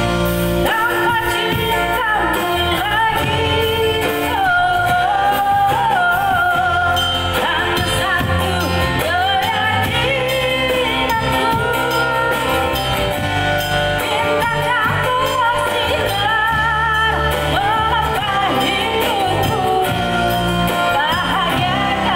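A woman singing a song live through a microphone and PA, her voice wavering with vibrato, backed by acoustic guitar and drums.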